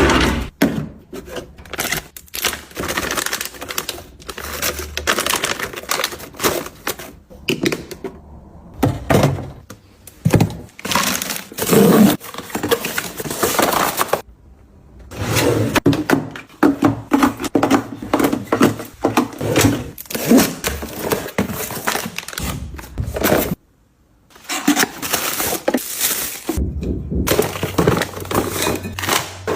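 Close-up handling of small household objects: a rapid run of taps, clicks and knocks with rustling between them, in several short stretches broken by brief silences.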